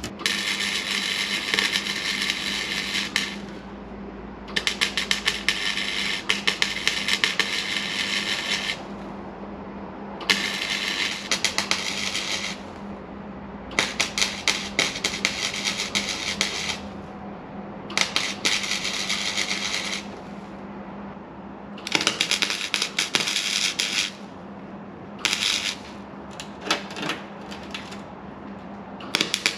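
Welding a steel patch into the Hilux's rusted inner sill: about nine crackling, sputtering weld runs of one to four seconds each, the last few short stitches, with a low steady hum underneath.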